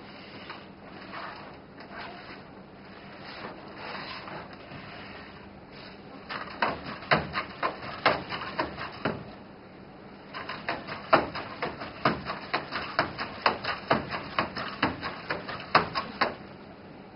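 Nao humanoid robot moving on a tabletop: its joint motors whir and its plastic body shifts as it pushes itself up from a crouch. Then its feet tap on the table in quick, uneven steps, about three a second, as it turns in place.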